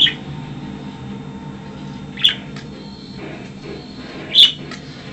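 Pet budgerigar giving three short, sharp chirps about two seconds apart, over a steady low background hum.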